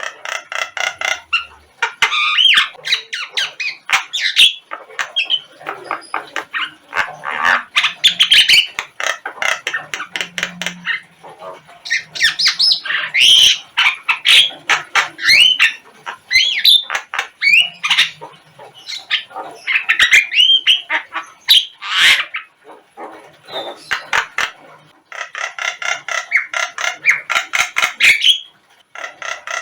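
Javan myna (jalak kebo) calling: a loud, varied string of harsh squawks, short whistled notes and fast rattling chatter, with brief pauses. This is song played as a lure track to get a kept bird to answer.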